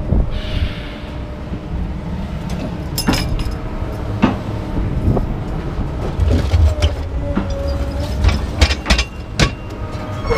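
A vehicle running with a low rumble, with scattered sharp metal clanks and knocks through it and a brief squeal a little past the middle.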